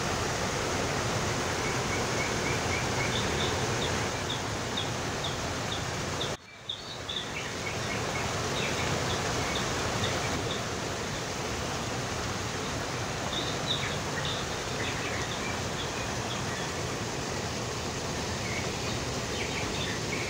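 Fountain water splashing steadily as jets fall into a shallow channel and water spills down stone steps, with small birds chirping now and then. The sound cuts out for a moment about six seconds in, then comes back.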